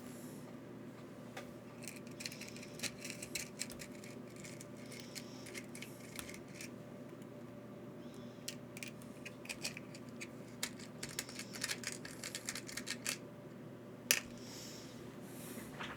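Small metal screws and hardware clicking and clinking as they are picked through by hand. The clicks come in irregular flurries, with one sharper click near the end, over a steady low hum.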